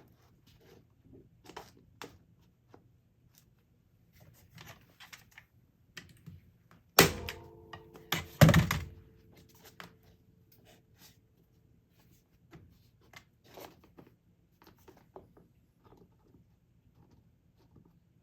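Hand staple gun fired twice, about a second and a half apart, each shot a sharp thunk with a brief metallic ring, driving staples through stretched canvas into its wooden frame. Faint handling clicks and rustles come before and after.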